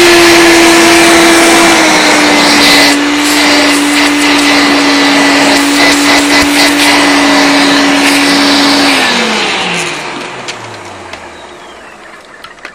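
Hoover Turbopower Freedom upright vacuum cleaner running with a steady motor whine whose pitch drops a little about two seconds in, with some clicks and rattles; about nine seconds in it is switched off and the motor winds down, its pitch falling away.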